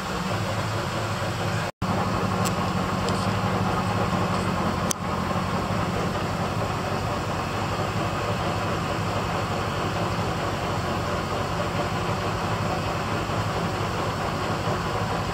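International Loadstar 1700 fire truck's engine idling steadily. The sound cuts out for an instant about two seconds in, and a few faint clicks come through.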